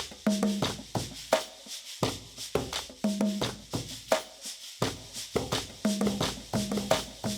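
Percussion-driven instrumental music: a steady, repeating pattern of sharp knocking hits mixed with short pitched notes.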